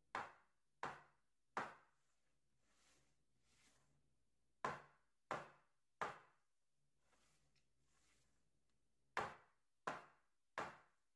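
A metal baking sheet of piped macaron shells rapped down on a granite countertop: three sets of three sharp knocks, about two-thirds of a second apart. This is the tapping that knocks air bubbles out of the macaron batter.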